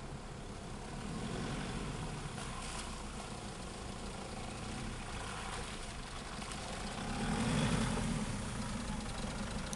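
Nissan Patrol 4x4's engine running at low revs as it crawls through mud and puddles, growing louder as it comes close and loudest about eight seconds in, with its tyres working through mud and water.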